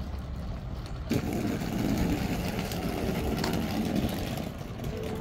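Steady low engine rumble that grows louder and fuller about a second in, then eases slightly near the end.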